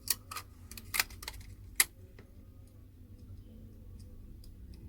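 Five or so light, sharp clicks and taps in the first two seconds, the sharpest near the two-second mark, from small hard parts of a disassembled smartphone being handled, over a low steady hum.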